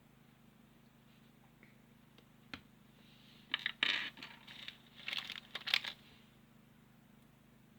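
Small plastic building-block pieces being handled: a single click about two and a half seconds in, then a few seconds of clattering clicks and rustling that stop about six seconds in.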